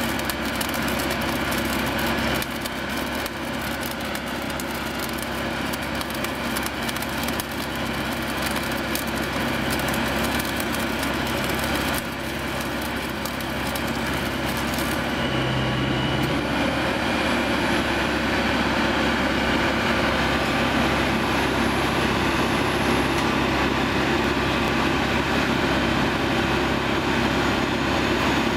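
Mobile flash-butt rail welding machine at work: the crackle of the flashing weld over the machine's steady engine. About halfway through the crackle stops and a steady mechanical hum remains.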